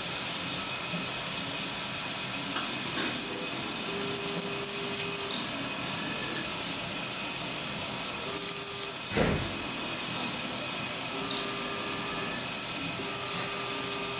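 An electrosurgical unit sounds its activation tone four times, in steady beeps of about half a second to a second, as the electrocautery pencil is used on the tissue. Under it runs a steady high hiss, and there is one sharp knock about two-thirds of the way through.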